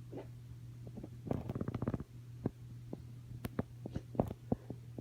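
Wet, crackly noises from a congested nose: a quick run of crackling clicks about a second in, then scattered single clicks, over a steady low hum.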